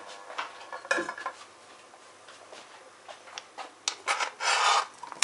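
Kitchen handling: light clicks and a sharp knock about a second in. Near the end comes a knife scraping chopped onion off a plastic cutting board into a frying pan, with a short rasping scrape and clicks.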